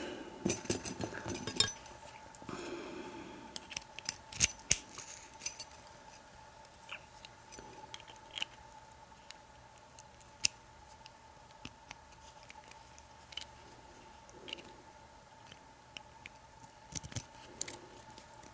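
Scattered small metallic clicks, taps and clinks of a padlock being taken apart, a plug follower being worked into the lock to push the core out. The clicks are busiest in the first few seconds, then sparser. A faint steady tone runs underneath.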